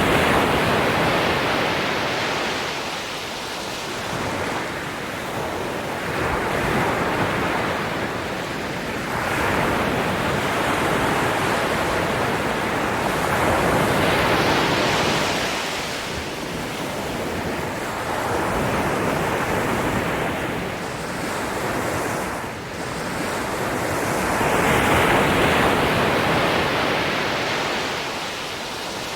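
Ocean waves breaking and washing on a shore, surging and receding every few seconds, with wind noise underneath.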